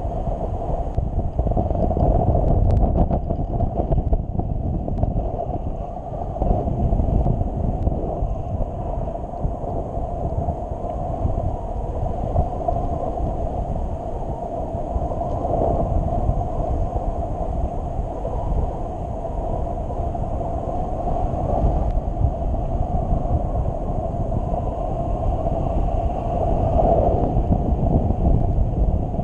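Wind rushing over the camera microphone of a paraglider in flight: a steady low rumble that swells and eases every few seconds.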